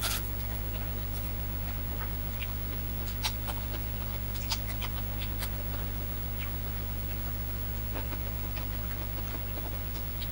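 Close-up eating sounds: chewing with scattered small clicks and crunches as food is picked up and eaten by hand, over a steady electrical hum.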